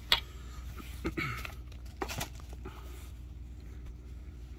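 Hands handling a plastic phone case and phone: a sharp click just after the start, then a few lighter clicks and taps over the next two seconds as they are picked up and set down, over a low steady hum.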